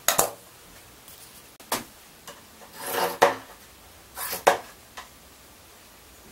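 Steel scissors snipping through fiberglass cloth, four separate cuts about a second or so apart, while a fiberglass patch is trimmed to shape.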